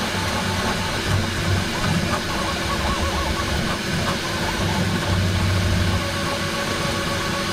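Bambu Lab X1 Carbon 3D printer running a print: stepper-motor whine that wavers in pitch as the print head moves, over a steady fan and motor hum.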